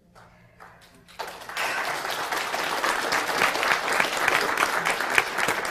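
Audience applauding: a dense patter of many hands clapping that starts about a second in, swells and then holds steady.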